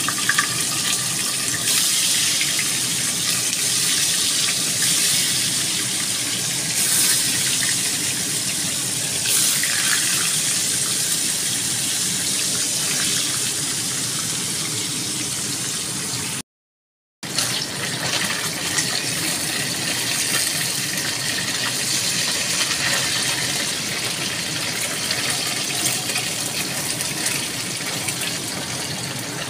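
Tofu blocks frying in hot oil in a wok: a steady sizzle and spatter. A short silent break a little past the middle.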